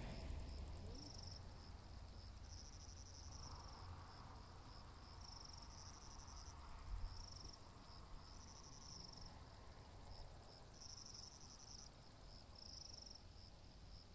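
Faint crickets chirping in short, high trills that repeat every second or so, over a low rumble.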